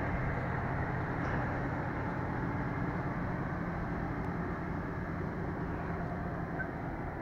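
1994 Ford F-150 pickup's engine idling steadily.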